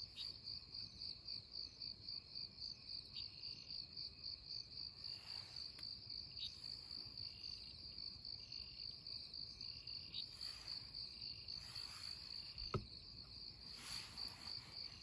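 Night insects chirping steadily, a high pulsing trill about three to four beats a second, with a fainter second call coming and going beneath it. A single sharp click sounds near the end.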